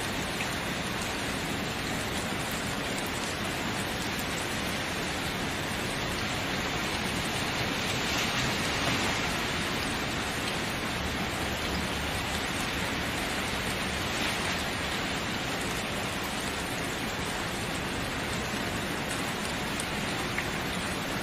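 Steady rainfall, an even hiss of rain with a few separate drops ticking now and then and a slight swell in intensity about eight seconds in.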